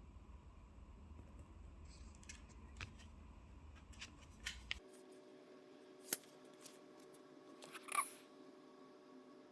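Faint scattered clicks and taps of small objects being handled, with two sharper clicks about six and eight seconds in. The background changes abruptly about five seconds in, from a low rumble to a faint steady hum.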